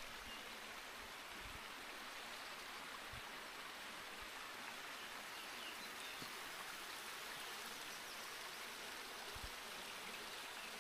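Steady, even hiss of running water, with a few faint low knocks.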